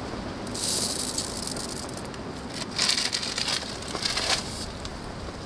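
A clear plastic bait bag rustles and small pellets rattle as they are handled and dropped into a PVA mesh tube, in about three short bursts.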